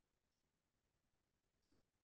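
Near silence: the call audio is gated off during a pause in speech.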